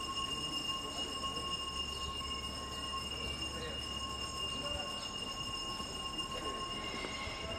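City street ambience: a steady high-pitched whine of several tones over a low rumble that fades about two-thirds of the way through, with faint voices.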